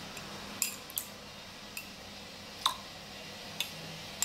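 A steel spoon clicking lightly against a ceramic mug as tablespoons of milk are scooped out: about six faint clicks at uneven intervals, over a faint steady hum.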